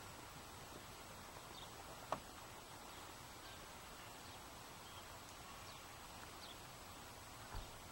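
Faint steady outdoor background noise with a few faint, short, high bird chirps. A sharp click about two seconds in and a low thump near the end.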